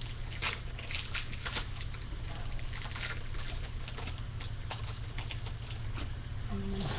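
A Bowman baseball card pack's wrapper being torn open and crinkled, then the cards slid out and handled. The crackling is dense for the first few seconds and then thins out, over a steady low hum.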